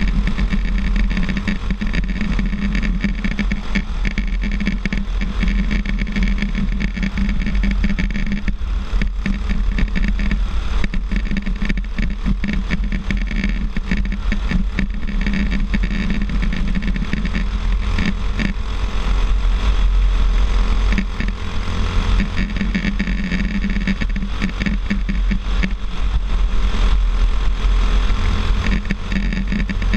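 Racing kart engine running hard through a lap, heard from a helmet camera with heavy wind buffeting on the microphone; the engine note dips briefly about two-thirds of the way through.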